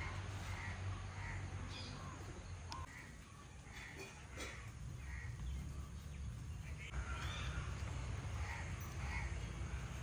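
Short animal calls repeating about once a second, with a slight lull around the middle, over a steady low rumble.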